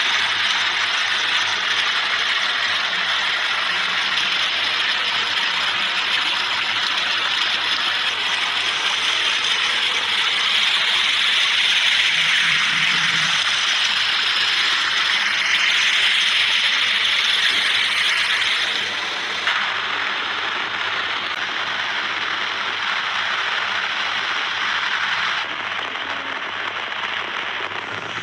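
Water gushing from a pipe and splashing into a concrete tank and onto the ground, a steady dense rushing, with heavy rain falling. The sound changes abruptly twice in the last third.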